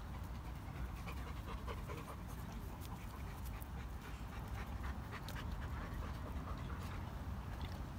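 A dog panting steadily, with scattered small clicks and scuffs mixed in.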